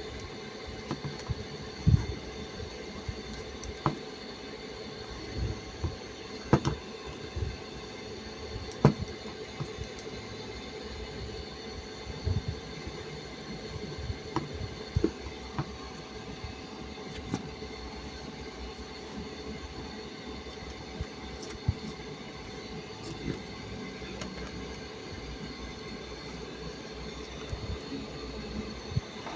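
Scattered short clicks and knocks at irregular intervals over a steady hum.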